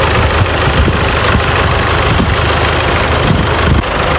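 New Holland 640 farm tractor's diesel engine running steadily as the tractor drives, with a short dip in loudness near the end.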